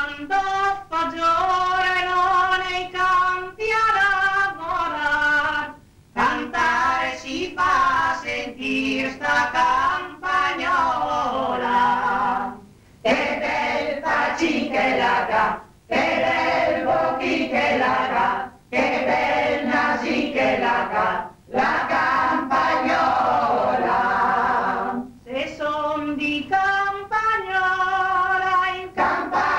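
A choir singing a song in phrases a few seconds long, with short breaks between them.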